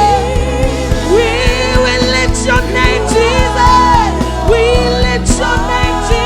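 Live gospel worship music: a band with a steady drum beat and bass under a sung melody.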